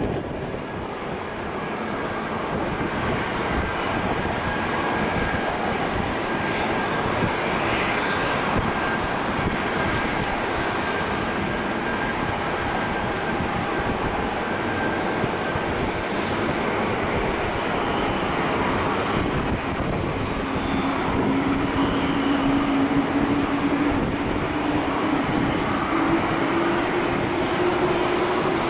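Jet airliner engines running on the airfield: a steady rush with faint whining tones, and in the second half a low whine that rises slowly in pitch.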